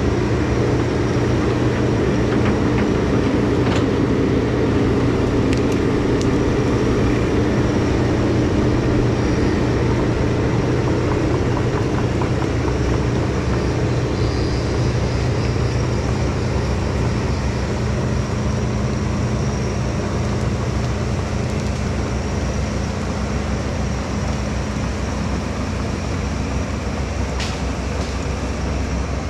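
Takeuchi tracked excavator's diesel engine running steadily as the machine tracks away, growing gradually quieter.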